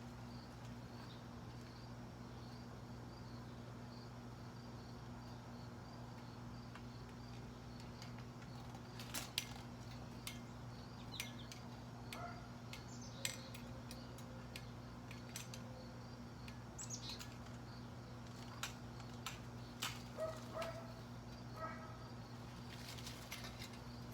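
Insects chirping in a steady, evenly pulsing rhythm over a low steady hum, with scattered sharp clicks from about nine seconds in and a few short chirps near the end.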